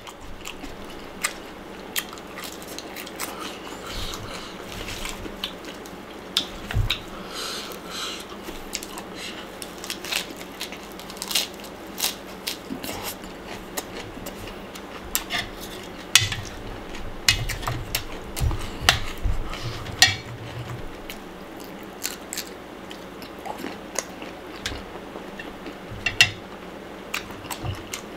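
A person chewing and crunching mouthfuls of Thai spicy pounded salad (som tam) with blanched shrimp and sator beans, with irregular sharp crunches and clicks.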